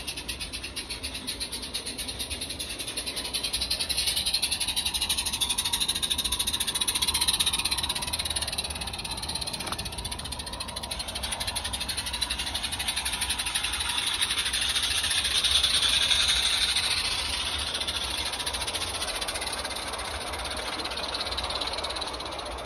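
Small live-steam garden railway locomotive running with fast, even exhaust beats and a hiss of steam, getting louder and softer as it travels around the track.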